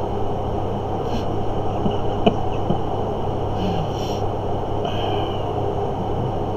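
Steady background hum and hiss of room noise, with a couple of faint clicks.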